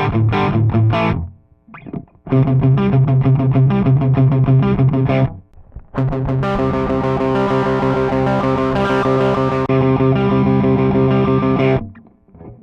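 Distorted electric guitar played through a Digitech CabDry cabinet-simulator pedal: two runs of fast repeated strokes separated by short pauses, then a long held chord that rings for about six seconds and cuts off near the end.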